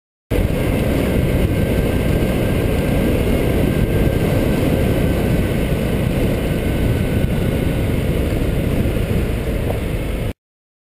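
Motorcycle running along a dirt trail, heard through a helmet camera's microphone with heavy low wind rumble over the engine. The sound starts suddenly just after the beginning and cuts off abruptly near the end.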